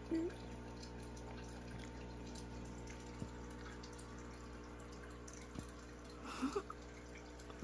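Aquarium filter running: water trickling and dripping over a steady low hum, with a couple of faint clicks.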